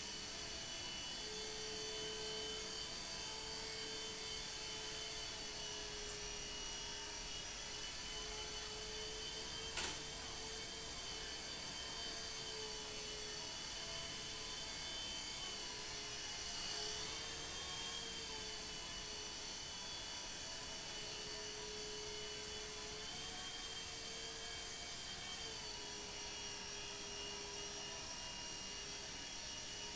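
Nine Eagles Solo Pro II micro RC helicopter's small electric motors whining steadily in flight, the pitch wavering slightly as the throttle changes. A single sharp click about ten seconds in.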